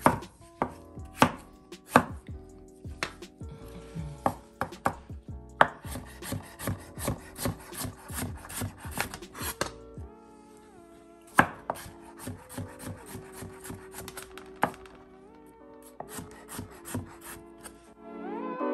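Chef's knife dicing a peeled potato on a wooden cutting board: a string of sharp knife strikes on the board, a fast run of cuts in the middle, then slower, spaced strokes.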